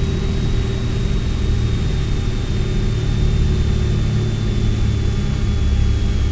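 Piper Arrow's piston engine droning steadily as heard inside the cabin, with a faint thin whine high above it that slowly falls in pitch.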